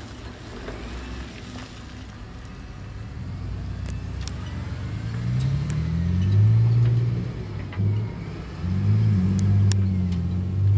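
Diesel engine of a heavy earthmoving machine, getting louder from about halfway and revving up twice as it works under load, with a few sharp clicks.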